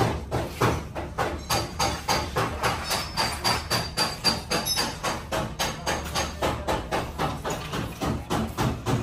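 Rapid, even hammer blows on car body sheet metal, about four to five a second, with a faint metallic ring: panel beating to straighten accident damage.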